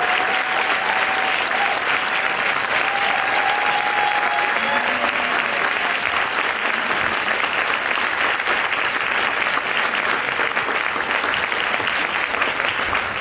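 Audience applauding steadily after a spoken-word performance ends.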